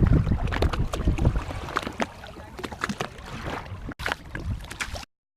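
On board a Viking-ship replica under way: a low rumble of wind on the microphone at first, then scattered splashes and knocks of water and the boat. The sound cuts off abruptly near the end.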